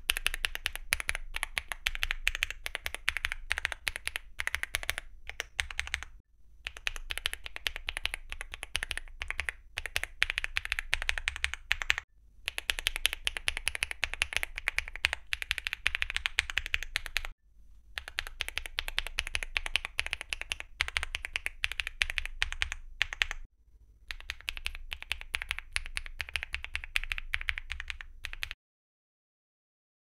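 Tactile mechanical keyboard switches, one key pressed over and over, in five runs of about six seconds each with brief pauses between them. The switches in turn are Gateron Beer, Gateron Baby Kangaroo 2.0, Gateron Mini i, Gateron Quinn and Duhuk Bitter Tea V2, all in a fully foamed Weikav Lucky65 with a PC plate and double-shot PBT Cherry-profile keycaps.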